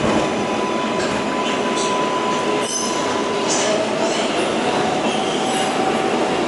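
Interior noise of an R188 subway car pulling out of a station: a steady rumble of wheels on rail with a thin high squeal over it, which gives way to a lower squeal about three and a half seconds in. A single click sounds near the middle.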